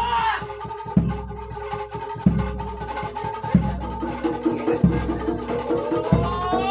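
Jaranan Dor ensemble music: a deep jidor bass drum struck about every one and a quarter seconds under busy lighter drumming and a steady pitched melody. A pitched note slides upward at the start and again near the end.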